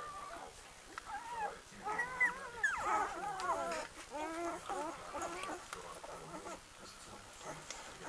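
Several week-old puppies squeaking and whimpering while nursing, many short rising-and-falling cries overlapping, busiest from about two to six seconds in.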